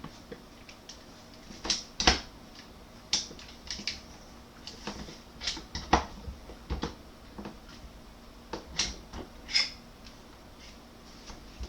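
Irregular clicks and knocks of a Ruger 10/22 rifle's action and parts being handled and fitted back into a Magpul X-22 polymer stock, with a few louder knocks among them.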